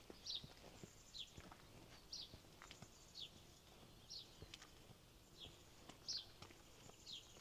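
A small songbird repeating a short, high, falling note about once a second, faint against quiet outdoor background.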